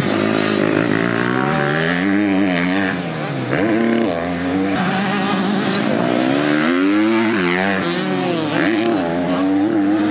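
KTM motocross bike's engine revving up and down as the rider rides the track, the pitch climbing and falling again and again, with short drops off the throttle about three and a half and eight and a half seconds in.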